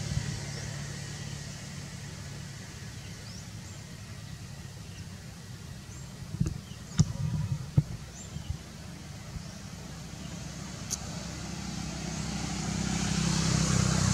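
A vehicle engine running with a steady low hum that grows louder near the end, with a few sharp knocks in the middle.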